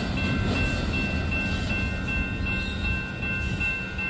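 Tail end of a double-stack intermodal freight train rolling past, its wheels rumbling and easing slightly as the last car moves off. A grade-crossing warning bell rings steadily over it.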